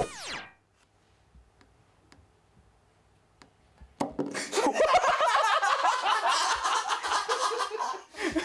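A falling synth sound effect at the start, then a quiet stretch with a few faint taps. About four seconds in comes a sharp click of a finger flicking a plastic eraser on a wooden desk, followed at once by loud laughing and shouting.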